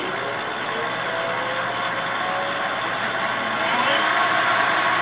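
Pulse Ecoped e-bike's electric motor spinning the wheel under throttle, a mechanical whine that rises slowly in pitch as it gathers speed and gets a little louder about three and a half seconds in. It is running on a freshly fitted pack of UPS batteries being tested for enough power to turn the wheel.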